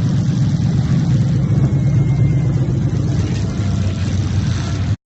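Demolition derby cars' engines running together in a loud, steady low rumble, which cuts out abruptly near the end.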